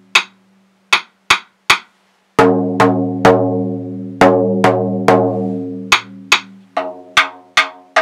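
A drum being struck. First come a few short, dry taps, then from about two and a half seconds in a steady run of deep strokes, about two to three a second, each ringing on with a low tone.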